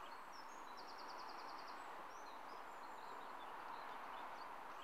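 Steady gentle rush of flowing river water, with small birds chirping and a short rapid trill about a second in.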